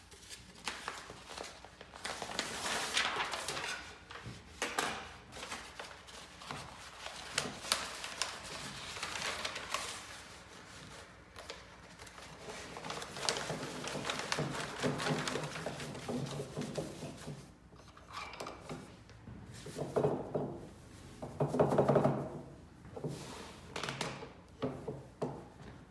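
Paper and warp yarn rustling and rubbing as the warp is wound onto the beam of a wooden tabletop loom with paper fed between the layers, with hand-handling noise throughout. A short pitched sound near the end is the loudest moment.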